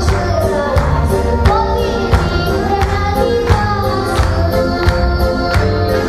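A boy singing a Romanian folk song into a microphone over accompanying music with a steady beat, about three beats a second.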